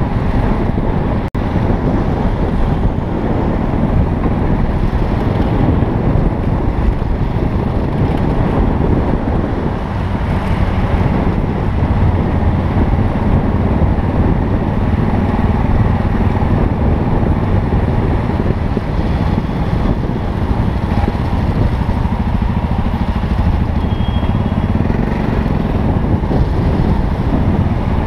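Yamaha XT660Z Ténéré's single-cylinder engine running at low road speed, a steady low rumble mixed with wind noise on the helmet-mounted camera's microphone. There is a momentary drop-out a little over a second in.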